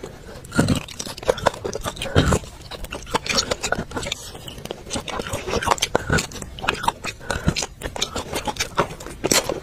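Close-up mouth sounds of a person sucking and biting marrow out of a cooked bone: irregular wet smacks, sucks and small clicks, with a few louder ones about a second in, just after two seconds and near the end.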